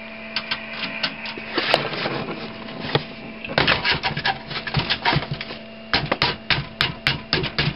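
CD-ROM drive being pushed into a computer case's metal drive bay: a run of clicks, knocks and scrapes of metal and plastic, busiest in the second half, over a steady low hum.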